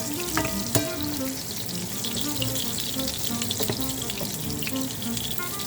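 Soya chunks frying in oil in a pan, a steady sizzle, with a few sharp clicks in the first second and again a little past the middle.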